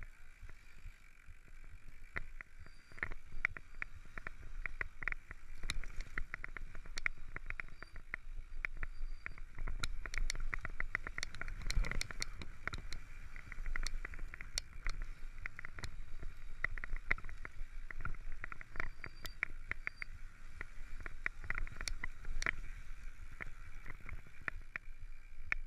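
Mountain bike descending a rough dirt and gravel trail: a steady rumble of tyres on the ground with constant clicks and rattles from the bike, and a heavier jolt about twelve seconds in.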